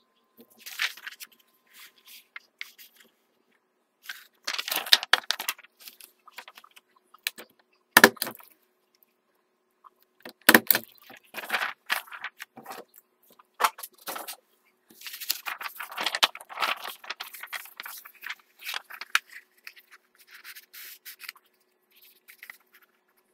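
A sheet of paper handled and folded on a desk: irregular rustling and scraping in bouts, busiest in the second half, with two sharp knocks, about 8 and 10.5 seconds in.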